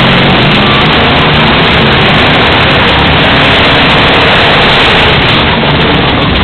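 Monster truck's big engine running very loud and steady under load as the truck climbs up onto and drives over a row of cars.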